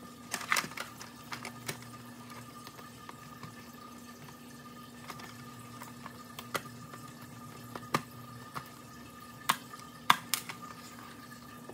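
Scattered small clicks and taps as a screwdriver works screws out of the plastic gearbox of a Big Mouth Billy Bass singing fish, with hands handling the plastic parts, over a steady faint hum.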